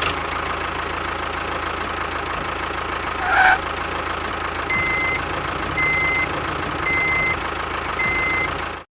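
Truck engine running steadily, with a brief louder burst about three and a half seconds in, then a reversing alarm beeping four times about a second apart. The sound cuts off abruptly near the end.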